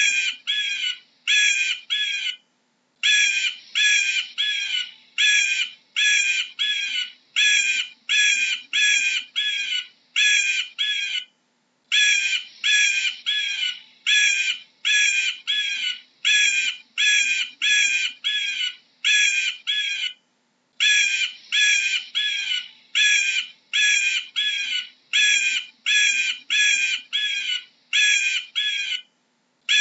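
Eagle calling: a long series of short, high, harsh notes, about two to three a second, broken by brief pauses three times.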